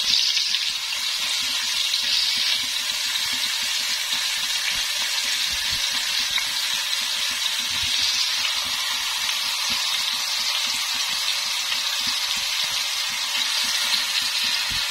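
Marinated tandoori chicken pieces frying in a few tablespoons of oil in a kadhai: a steady, even sizzle.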